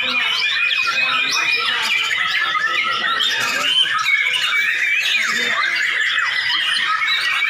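Several caged white-rumped shamas singing at once in competition: a dense, unbroken tangle of overlapping whistles, trills and chirps.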